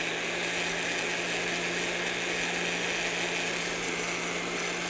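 Black+Decker countertop blender running steadily at full speed, its motor hum under the whir of the blades chopping frozen bananas, spinach and mint in almond milk into a smooth shake.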